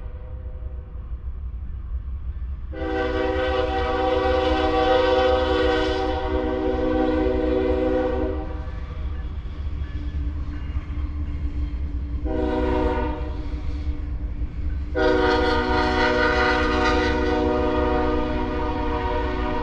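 Freight locomotive's multi-chime air horn sounding a long blast, a short one and another long one, over a steady low rumble.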